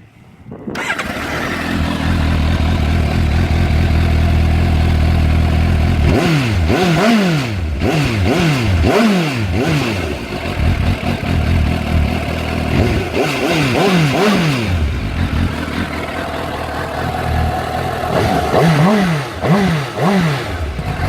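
Suzuki GSX-S750's inline-four engine on its stock exhaust starts about a second in and idles. It is then blipped through three sets of quick revs that rise and fall, settling back to idle between them. The revs are kept short because the new engine is still being run in.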